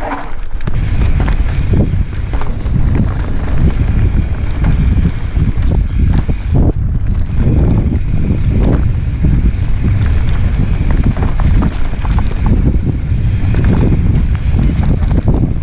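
Wind buffeting a helmet-mounted camera's microphone as a mountain bike rolls down a rough dirt trail, with tyres running over dirt, rocks and roots and the bike rattling and knocking over the bumps.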